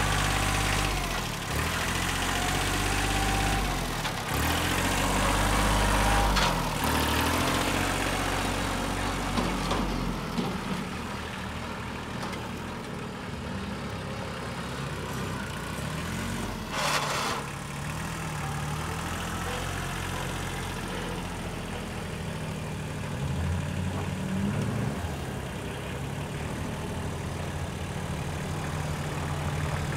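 Kubota L2350 compact tractor's diesel engine running as the loader tractor drives about, its pitch rising and falling as the revs change. It grows fainter as the tractor moves off and louder again near the end, with a brief clatter partway through.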